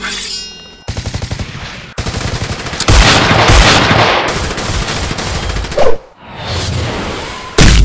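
Automatic gunfire sound effects: rapid bursts of machine-gun fire from about a second in, swelling into a loud, dense barrage of several guns about three seconds in, with another loud burst near the end.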